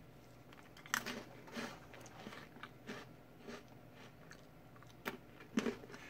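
Faint, irregular light clicks of Choco Song-i chocolate mushroom snacks being set down one by one on a wooden tray by a gloved hand.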